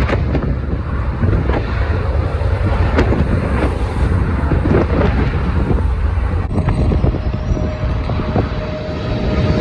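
Strong wind buffeting the microphone in gusts, a heavy low rumble with rushing noise. About two-thirds of the way through, a faint steady whine joins underneath.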